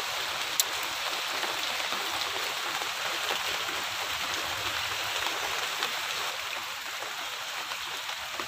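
Steady rain, heard as a continuous even hiss, with one sharp click about half a second in.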